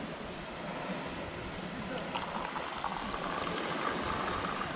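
Tea poured in a thin stream from a metal teapot held high into a glass, a steady trickling splash that starts about two seconds in, over a steady rushing background.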